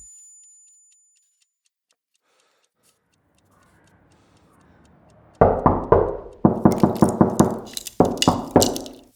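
After a few seconds of near silence, a fast series of loud, sharp knocks begins about five seconds in, about four a second, each with a short ring.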